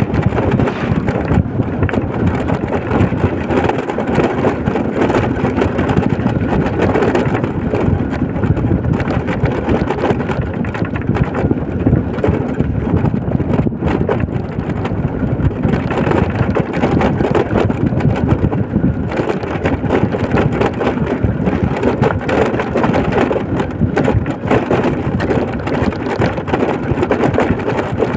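Steady noise of a vehicle driving along a road: engine and tyre rumble that holds level throughout.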